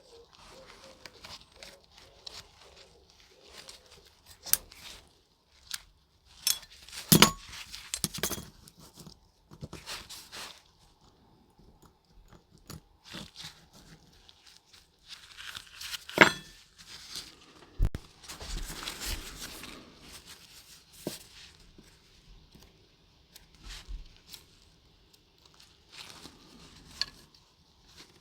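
Small hand-work sounds at a workbench: scattered light clicks and taps of small metal parts and tools being handled, with two sharper knocks and a stretch of rustling or scraping later on.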